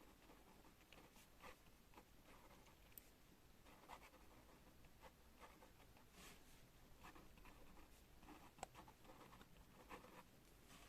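Faint pen scratching across paper in short, irregular strokes, with a sharp click late on.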